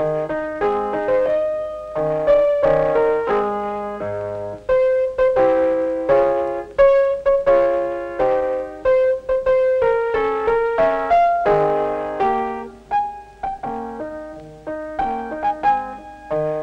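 Piano music: a melody over chords, each note struck and then dying away.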